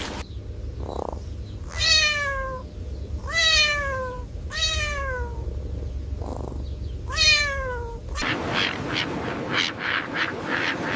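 Cat meowing four times, each meow sliding down in pitch. About eight seconds in, this gives way to a quick run of short, harsh calls.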